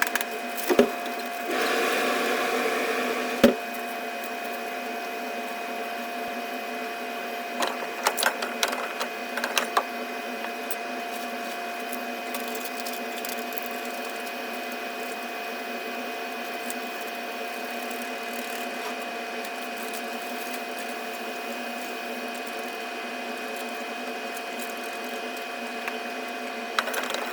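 Steady mechanical hum made of several held tones. A louder rush of noise comes in for a couple of seconds near the start, and scattered sharp clicks and knocks come near the start, about a third of the way in, and at the end.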